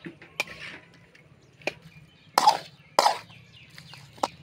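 Steel spoon clinking and scraping against an aluminium kadai while raw chicken is mixed with its spice marinade: a handful of sharp knocks spread through, the loudest two about halfway in.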